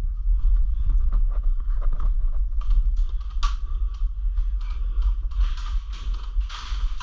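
Steady low wind rumble on a body-worn microphone, with rustling and scattered clicks and creaks of gear being handled, busiest near the end.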